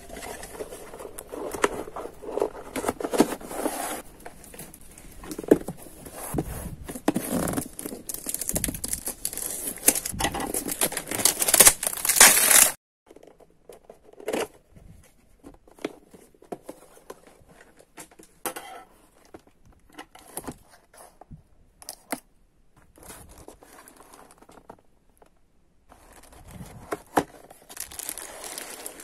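Hands handling paper and plastic packaging: steady rustling and crinkling with some tearing, which cuts off suddenly a little under halfway. After that come scattered light clicks and taps, and the rustling picks up again near the end.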